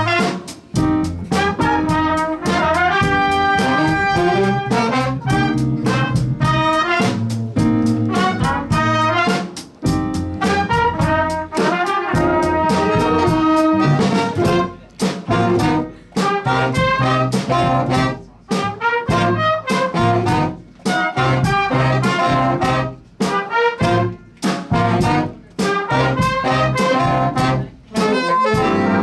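A student jazz big band playing live: trumpets and trombones playing loud punchy figures over drums. In the second half the band plays short stabbed chords with brief breaks between them.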